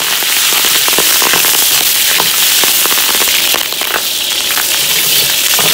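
Wet, freshly blanched chicken feet hitting hot oil in a large wok: loud, continuous sizzling with many sharp crackling pops as the water on them spits in the oil.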